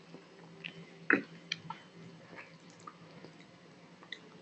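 Fingers mixing rice and dal on a steel plate: soft wet squishing and small ticks, with one sharp tap against the plate about a second in. A faint steady low hum runs underneath.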